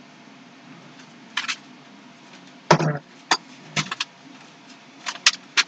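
Small metal hardware, screws, clinking and rattling in about half a dozen short bursts as they are sorted through for a long enough one.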